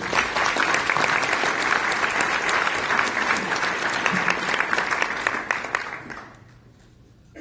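An audience applauding: many hands clapping at once. The clapping starts suddenly, holds steady for about six seconds, then dies away.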